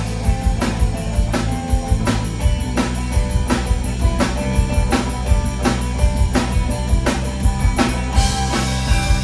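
Live band playing an instrumental passage: a steady drum-kit beat over bass and guitar, with a cymbal wash coming in near the end.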